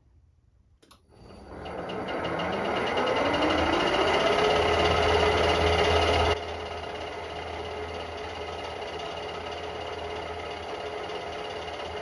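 Centec 2B milling machine switched on with a click about a second in. The horizontal spindle spins up with a rising whine and settles into steady running in fast speed and middle gear, the cutter turning free. The level drops abruptly about six seconds in and the running carries on.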